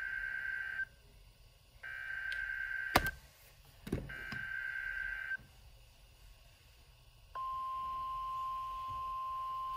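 A NOAA Weather Radio alert playing through a Midland weather radio's speaker. Three buzzy digital SAME header bursts, each a little over a second long with a short gap between them, the first already running at the start. About two seconds after the last burst, the steady 1050 Hz warning alarm tone comes on, signalling that a severe thunderstorm watch is being issued. A sharp knock and a duller thump come between the second and third bursts.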